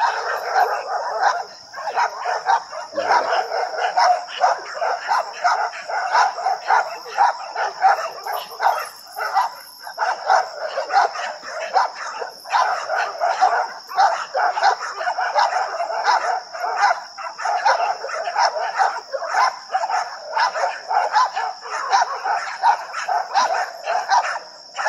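Dogs barking in rapid, almost unbroken volleys of several barks a second. It is agitated barking at another dog over a bone.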